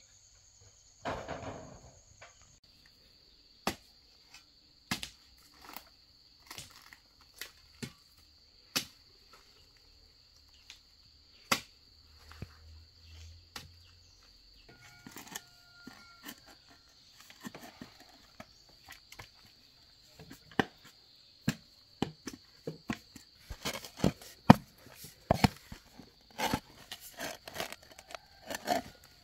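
Irregular sharp knocks and cracks of hand work on bamboo, coming faster and louder in the last few seconds, over a steady high-pitched insect drone.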